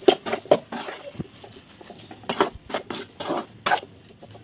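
Slotted metal spoon stirring and scraping a thick grated potato-and-carrot stuffing in a metal pan: a run of irregular short scrapes and clatters against the pan.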